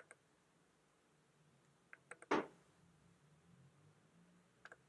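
Quiet room tone with a faint low hum, broken by one brief soft swish a little over two seconds in and a few faint ticks.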